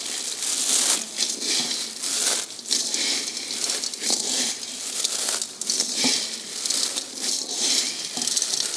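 Crisp fried gram-flour sev being crushed by hand in a metal wok: a continuous, irregular crunching and crackling as the brittle strands snap into small pieces.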